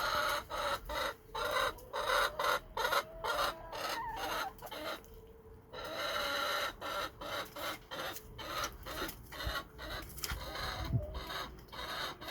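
Chickens clucking and squawking in quick, uneven calls, alarmed by a tornado warning siren whose faint steady tone sounds behind them.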